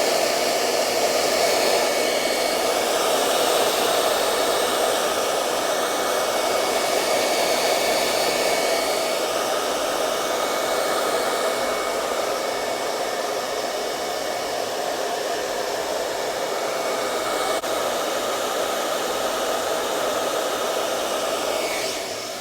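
Handheld hair blow dryer running steadily, drying spray adhesive on a wig's lace hairline until it is tacky. It switches off at the very end.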